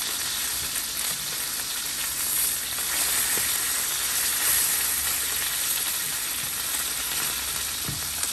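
Chicken frying in hot oil in a pan: a steady sizzle.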